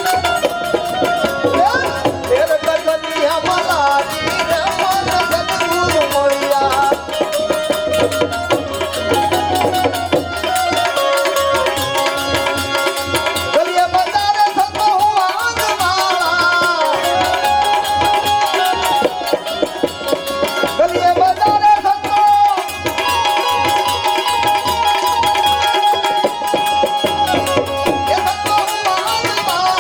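Instrumental passage of Gujarati devotional santvani bhajan music: a wavering melodic line carried over a steady tabla rhythm.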